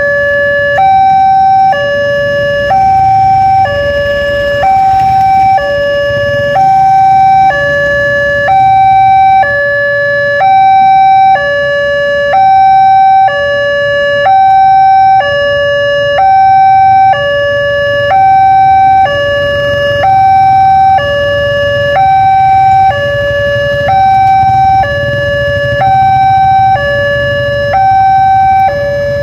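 Railway level-crossing electronic warning siren sounding its plain two-tone alarm, a steady hi-lo pattern with each tone held about a second. A low rumble runs underneath.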